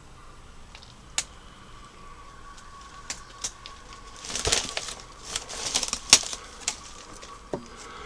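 Dry leaves and twigs crackling and snapping, as if trodden through. Scattered sharp cracks, thickening into a burst of rustling and snapping about halfway through, with the loudest crack near the end of that burst.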